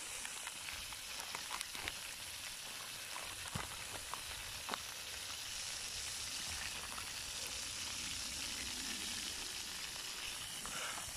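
Griddle pan sizzling on a camping stove: a steady frying hiss with a few small crackles and spits in the first half.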